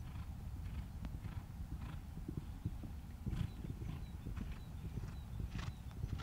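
Horse cantering on a sand arena: dull hoofbeats in a steady rolling rhythm, with short breaths blown out in time with the stride.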